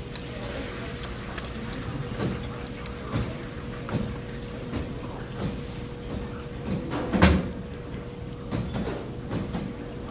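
Restaurant dining-room sounds: a steady hum, faint background chatter, and light clicks of a fork tapping and scraping on a china plate. One louder thump comes about seven seconds in.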